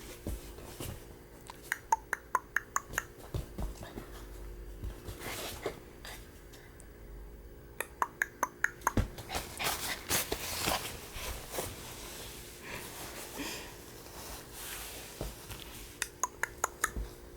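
A person making strange noises at a dog: three runs of quick, short, sharp pitched pops, six to nine in a row at about four a second, with softer scuffling and a louder rush in between.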